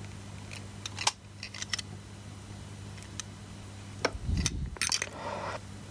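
Light, scattered clicks and taps of metal tweezers working at a servo's wire joints while desoldering, over a steady low electrical hum, with a duller bump about four seconds in.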